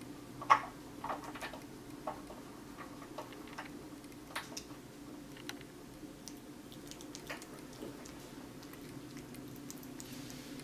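Kitten chewing and licking watermelon: small wet clicks and smacks at irregular intervals, the loudest about half a second in, over a steady low hum.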